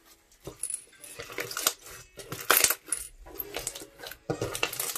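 Green slime full of small foam beads being squeezed and pressed by hand: irregular wet squelches and crackling clicks, the loudest burst about two and a half seconds in.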